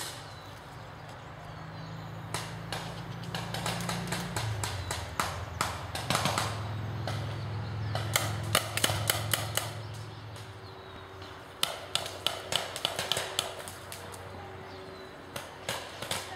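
Paintball markers firing in several bursts of rapid pops, at about seven or eight shots a second, over a low steady hum.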